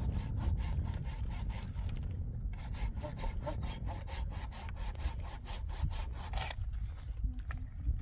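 Wood being sawn by hand, a quick, even run of saw strokes with a short break about two seconds in, stopping about six and a half seconds in.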